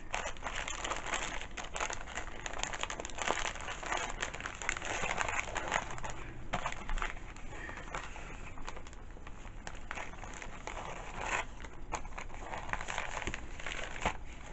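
Continuous crinkling and rustling of craft wrapping materials being handled, with many small crackles throughout.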